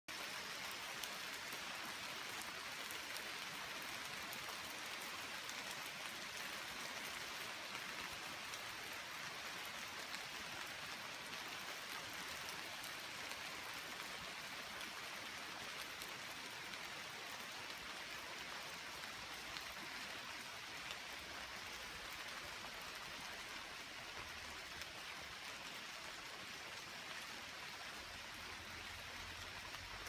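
Rain falling on a leafy forest canopy: a steady, even hiss with scattered faint drop ticks.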